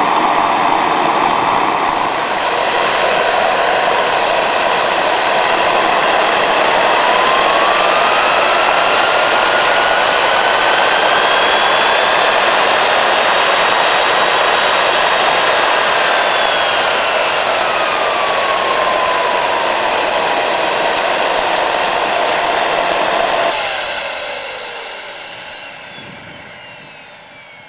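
Home-built twin-spool turboshaft gas turbine, built around a turbocharger, running loud with a high whine and rushing hiss while it turns a propeller. The whine rises as it is throttled up about a quarter of the way in, holds, then falls back. Near the end the engine is shut down and the whine glides down and fades as it spools down.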